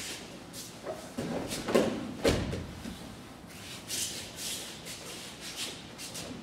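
A heavy body thudding onto tatami mats as an aikido partner is taken down, about two seconds in. Afterwards, feet and cotton gi rustle and shuffle on the mats as he gets back up.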